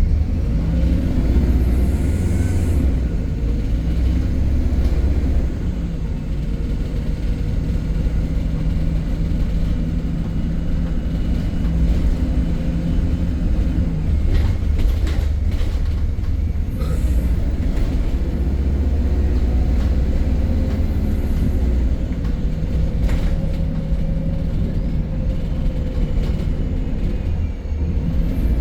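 MAN E300 single-deck diesel bus heard from on board on the move: a steady low engine and drivetrain rumble whose pitch rises and falls a few times with road speed, with a few sharp rattles or clicks around the middle and later on.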